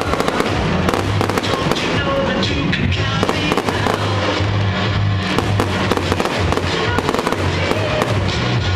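Fireworks popping and crackling in a dense, continuous barrage, with music playing alongside.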